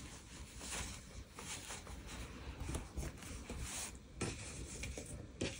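Faint rubbing and rustling of giant chunky yarn as bare hands pull loops through the stitches and handle the work, with a few soft scattered taps.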